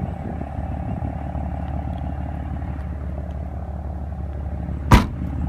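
A steady low hum, with a single sharp knock near the end.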